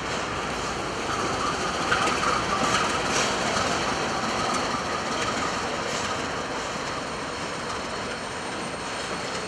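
Canadian Pacific double-stack container train rolling past, with a steady rumble of wheels on rail. A thin wheel squeal rises over it for a few seconds near the start, and there are a few sharp clicks from wheels passing over rail joints.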